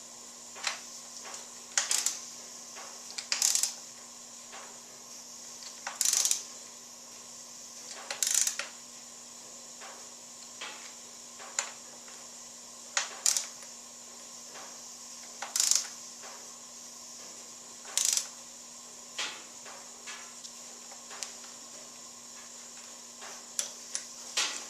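Irregular metallic clinks and clanks of hand tools and motorcycle parts being handled and set down, about fifteen in all, some in quick pairs or triplets, over a steady faint hum.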